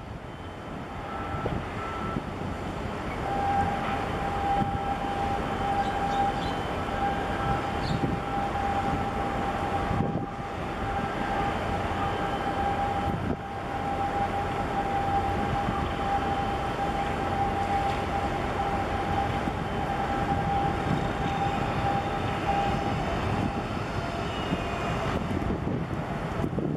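Rumble of vessel engines close by, with wind noise on the microphone and a steady high-pitched whine that runs for about twenty seconds and stops near the end.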